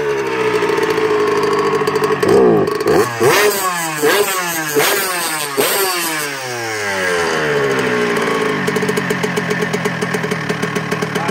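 2001 Honda CR125's two-stroke single-cylinder engine running on the stand: blipped several times, the pitch falling back after each rev, then settling into a steady, pulsing idle.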